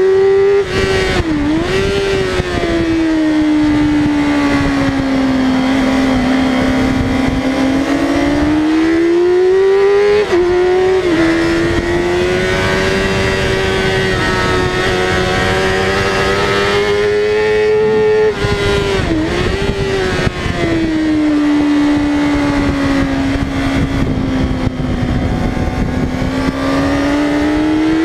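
Yamaha R6's inline-four engine running at high revs on track, its pitch sweeping slowly down and up with the throttle through the corners, with brief sharp dips in pitch about a second in, at about ten seconds and at about nineteen seconds. A steady rush of wind runs under it.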